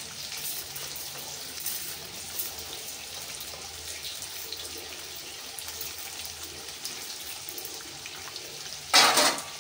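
Eggplant pieces frying in oil in a pan, a steady sizzle, with a brief loud clatter about nine seconds in.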